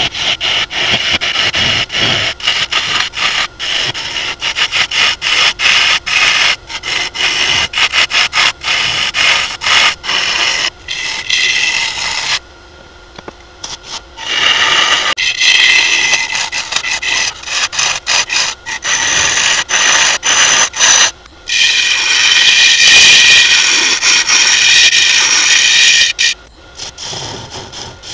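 Carbide turning tool scraping the inside of a maple burl bowl spinning on a wood lathe, in short choppy cuts. The cutting pauses about halfway through and briefly twice more near the end.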